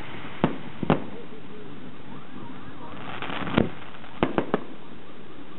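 Aerial firework shells bursting overhead: two sharp bangs within the first second, a third about three and a half seconds in, then three in quick succession just after.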